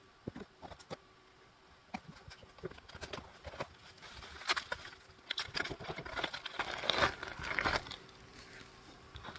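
Scissors snip a few times at a mail package. Then bubble wrap and plastic packaging crinkle and rustle as they are handled and pulled apart, busiest in the second half.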